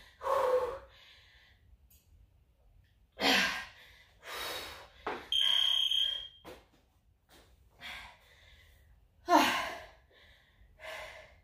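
Hard, gasping breaths of a woman worn out mid-exercise in a push-up and knee-tuck set, coming in separate heaves with short pauses between. About five seconds in, a single high electronic beep sounds for under a second.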